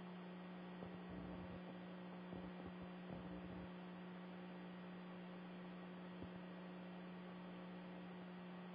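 Faint steady electrical mains hum with light hiss. A few faint soft knocks come between about one and three and a half seconds in.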